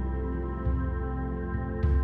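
Ambient background music: sustained chords over a soft low pulse that comes twice, about a second apart.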